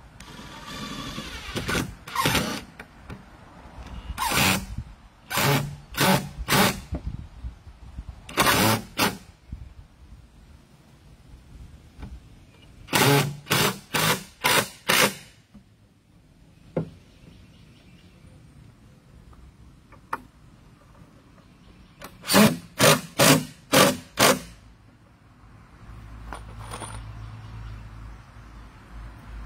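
Cordless power drill driving screws into cedar fence boards, run in short trigger bursts, mostly in quick groups of four or five pulses with pauses between groups.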